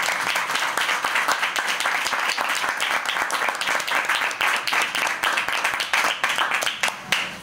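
Audience applauding: many hands clapping in a dense patter that stops abruptly near the end.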